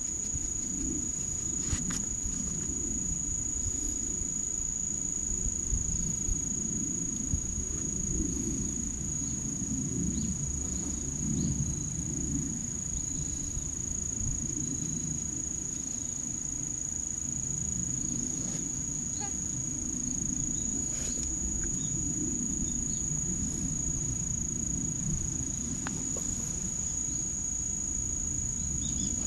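Crickets chirping in one steady high-pitched drone over a low, uneven rumble, with a few faint clicks.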